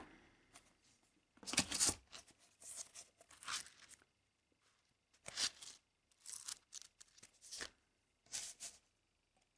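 Sheets of a small paper memo pad being flipped and handled: a series of short paper rustles, the loudest about one and a half seconds in, then several softer ones.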